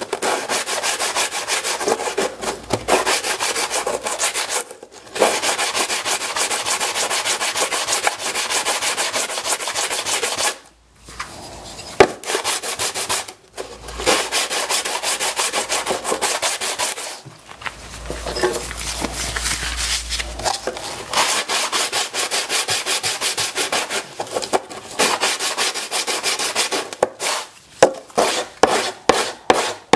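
Small wooden strip rubbed back and forth by hand on a sheet of sandpaper laid flat: a rapid scratching with a few short pauses. Near the end the strokes slow into separate rasps, a couple a second.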